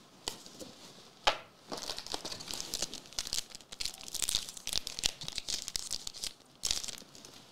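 A foil trading-card booster pack being torn open and its wrapper crinkled, a dense crackly rustle, with a sharp tap about a second in and a last short rustle near the end.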